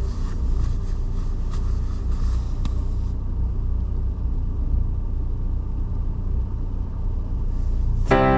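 Car on the move on a snowy road: a steady low rumble of the engine and tyres, with a few faint ticks in the first three seconds. Piano music comes in near the end.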